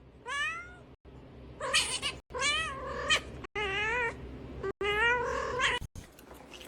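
A cat meowing and yowling: about five drawn-out calls, several of them wavering in pitch.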